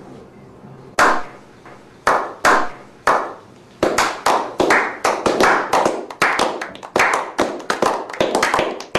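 A slow clap by a small group of people. Single sharp hand claps come about a second apart, then speed up into quick, steady clapping from about four seconds in.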